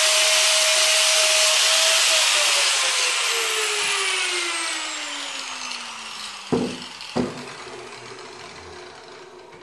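Corded angle grinder grinding the steel axle tube of a Ford 9-inch rear housing smooth where the spring perches were cut off. After about two seconds the motor winds down, its whine falling steadily in pitch while the disc still rubs the metal, with two clunks past the middle.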